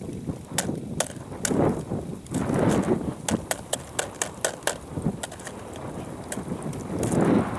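Footsteps crunching in snow over ice, sharp crunches about two or three a second, with gusts of blizzard wind buffeting the microphone.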